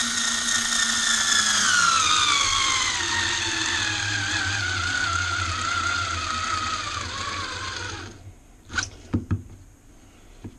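A Power Advantage 3.6-volt cordless screwdriver motor whines while driving a 1 3/4-inch wood screw. Its pitch falls steadily as the motor slows under the load, until it stops about eight seconds in with the screw not fully driven: the driver lacks the torque for a screw this long. A few short knocks follow.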